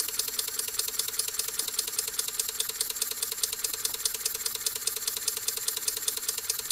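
Miniature horizontal single-cylinder live steam engine (Microcosm Q4) running slowly on low-pressure compressed air, just under 3 psi. It makes a light, fast, even clicking and clattering as it turns over.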